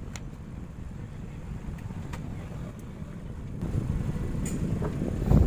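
Steady low background rumble with a few faint light clicks, growing louder about three and a half seconds in, and a short thump near the end.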